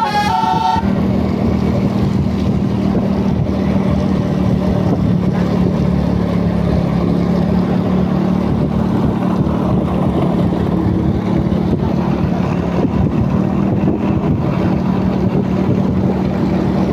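A bus's multi-tone telolet horn finishes its tune within the first second. Then the bus engine runs with a steady low drone.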